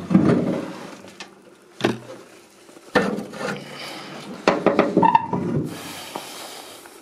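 Rusty boot lid of an old car being unlatched and lifted open by its T-handle: scraping of corroded metal, two sharp metal clunks about two and three seconds in, then a creaking rub of the stiff lid.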